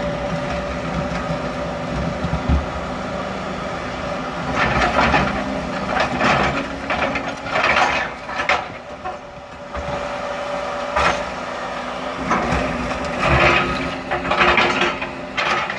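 John Deere 200 excavator running steadily while its bucket works a concrete footer, with irregular rough scraping and crunching bursts every second or two from about four seconds in.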